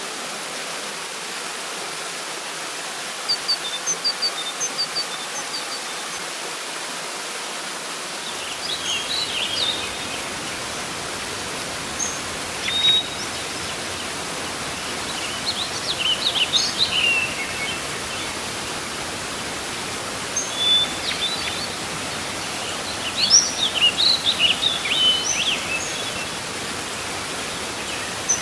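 Waterfall rushing steadily, gaining a deeper low rumble about a third of the way in, with birds chirping and calling in short runs throughout, busiest near the end.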